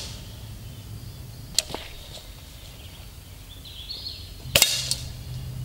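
Gamo Silent Cat break-barrel spring-piston air rifle firing once, about four and a half seconds in: a sharp crack followed by a short low hum. A thinner single sharp click comes about a second and a half in.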